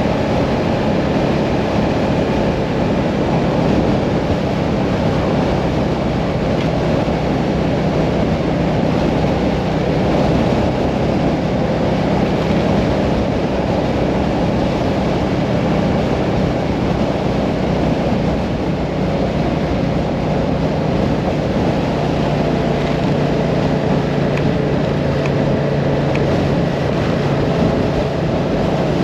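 Hyosung Mirage 650 V-twin motorcycle cruising at a steady speed, its engine holding an even note under constant wind and road rush.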